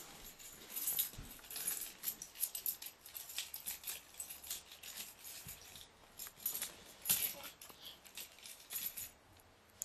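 Irregular light rattling and jingling, many quick small clicks, of something small being shaken.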